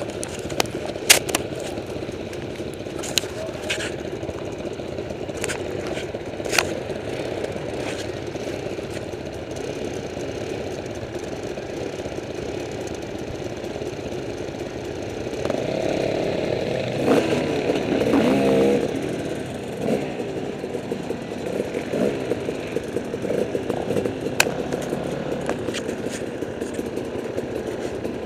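Off-road enduro motorcycle engines running at idle, with scattered sharp clicks and knocks. One engine is revved for a few seconds just past the middle.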